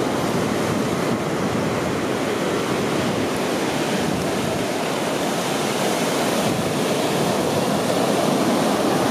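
Ocean surf breaking on the shore, a steady rush of waves.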